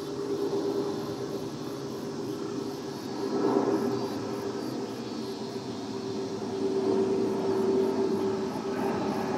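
Twin-engine jet airliner passing overhead: a steady distant jet drone with a constant hum in it, swelling about three and a half seconds in and again near the end.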